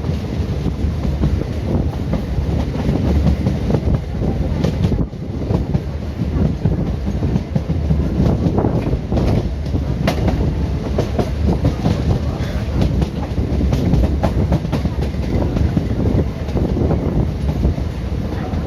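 An Indian Railways ICF passenger coach running along the track at speed. A steady heavy rumble carries continual clatter and rattling of the wheels over the rails.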